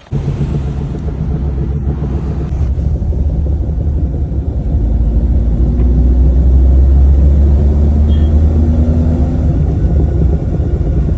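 Maruti Alto on a test drive over a paved road, a loud low rumble and rattle of the car running at speed. It grows louder over the first seven seconds or so, with a faint rising engine note. This is the 'rad rad' noise the customer hears above about 40 km/h, which was traced to two missing nuts.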